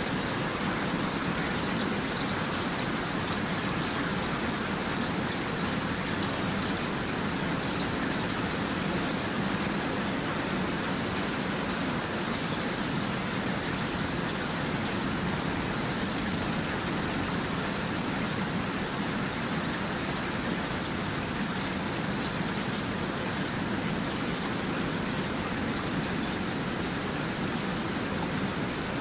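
Steady rain falling, an even hiss of many drops that goes on without a break.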